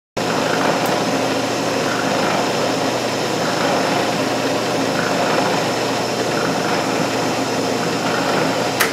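Small milling machine running steadily as its cutter skims the top face of a cast HDPE block to level it. There is a click near the end as the machine is switched off and the sound starts to fall away.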